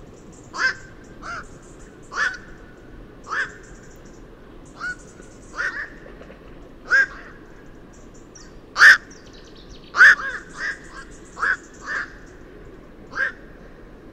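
Black-crowned night heron giving its short, harsh 'quok' call about a dozen times at irregular intervals, roughly once a second. The loudest calls come about two-thirds of the way through.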